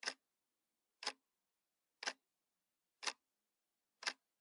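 A clock ticking steadily, one short sharp tick each second.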